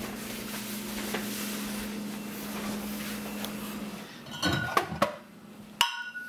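Glass beer bottles knocking and clinking together as they are pulled off a refrigerator shelf: a cluster of clinks about four seconds in and one sharp ringing clink near the end. A steady low hum runs underneath until the last clink.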